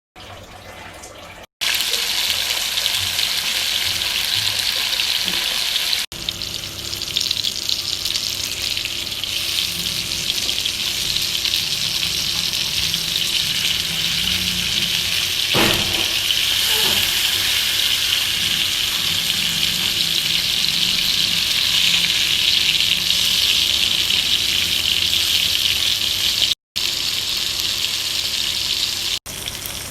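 Tuna pieces frying in hot oil, a steady sizzle that stops and starts abruptly at several edits.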